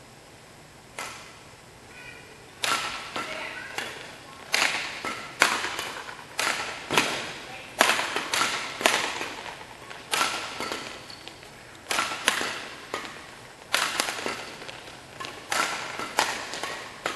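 Badminton rackets striking a shuttlecock in a doubles rally: a first hit about a second in, then a long run of sharp hits, roughly one every half second to a second, each ringing out briefly in the hall.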